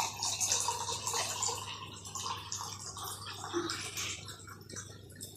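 Close-miked eating sounds of goat liver curry with rice: irregular wet clicks and smacks, louder at first and fading somewhat toward the end, over a low steady hum.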